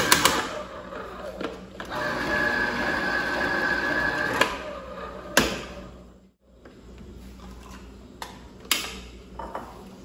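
Philco electric citrus juicer running, its motor spinning the reamer against an orange half pressed down by the lever arm, with a steady whir and thin whine until it stops about four seconds in. A few sharp clicks and knocks follow as the lever is lifted and the juicer is handled.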